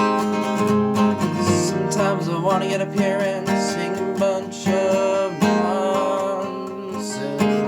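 Music: acoustic guitar being strummed, the instrumental opening of a song.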